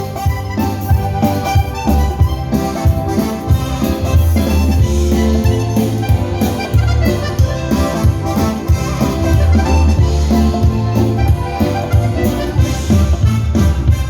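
Dance-hall music with a steady beat, a strong bass line and sustained melodic notes.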